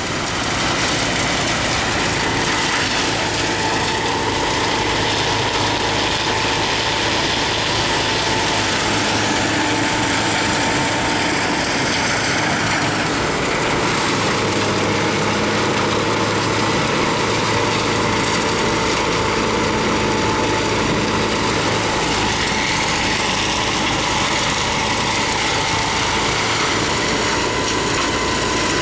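Biomass harvester machine running steadily: engine noise with a constant whine over it.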